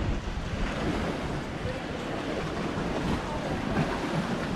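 Wind noise on the microphone over the steady wash of ocean surf against the rocks below.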